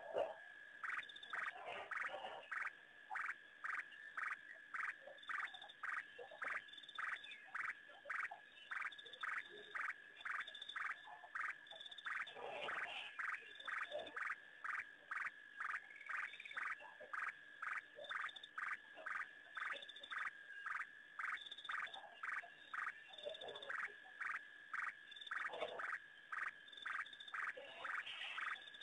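Frogs calling at night by a waterhole, one repeating a short call over and over, about two to three calls a second.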